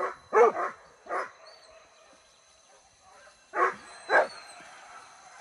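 Hunting dogs barking in short sharp barks: four in quick succession, then a pause, then two more about three and a half seconds in.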